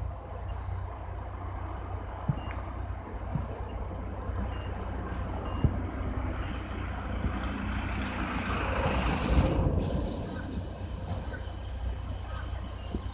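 KD60 diesel locomotive pulling a freight train away from a standstill, its engine giving a steady low rumble. A hiss builds over a few seconds from about halfway and cuts off sharply about three-quarters of the way in, after which a thin high steady tone continues.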